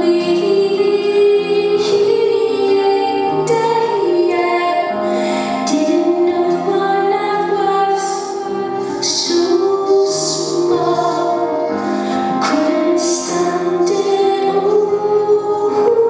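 Live solo performance: a woman singing over piano, with held bass notes and chords under the vocal line.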